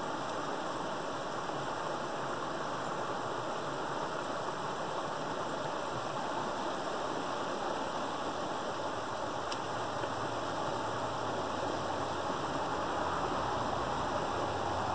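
Water rushing steadily through a gap in a beaver dam, a small cascade pouring into the creek below.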